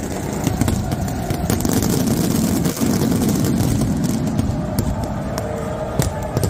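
Dense roar of a stadium crowd, with several sharp firework cracks at irregular moments.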